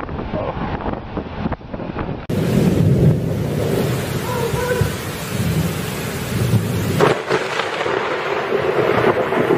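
Thunderstorm: heavy rain hissing with low thunder rumbling under it. About two seconds in the sound jumps louder and fuller, and about seven seconds in the rumble drops away, leaving the steady hiss of rain.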